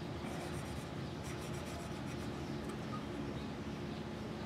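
Steel motorcycle wheel spokes being scrubbed by hand with an abrasive pad, in short, irregular rubbing strokes, to work off surface corrosion. A steady low hum runs underneath.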